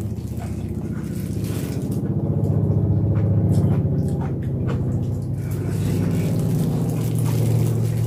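A low, steady hum with a buzzing edge.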